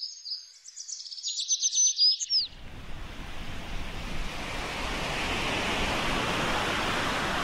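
Small birds chirping in quick, high trills for about two seconds, then sea waves breaking: a steady rush of surf that builds slightly.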